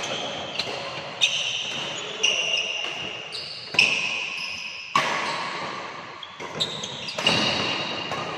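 Badminton rally: a Li-Ning Windstorm 72 racket striking the shuttlecock with sharp hits about once a second, each followed by a brief ringing tail, with short high squeaks in between.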